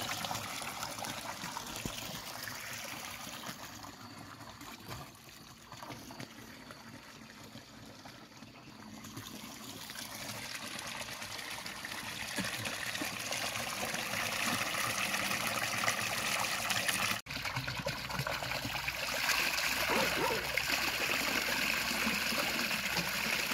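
Spring water pouring steadily from a fountain's metal spout and splashing into a stone basin; louder near the end.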